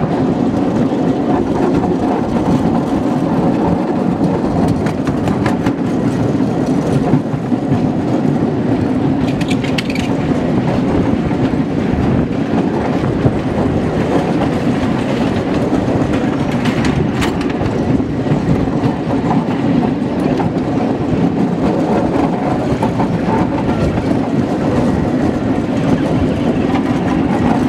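Quarter-scale miniature railroad cars rolling along the track, heard from aboard the train: a steady rumble of wheels with a continuous clickety-clack.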